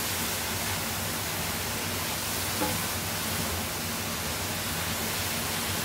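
Zucchini ribbons sizzling in butter in a hot electric skillet: a steady hiss.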